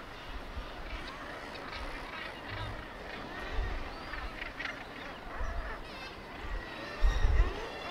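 Seabird colony on a cliff calling: many overlapping harsh calls. There are bursts of low rumble every second or two, the loudest near the end.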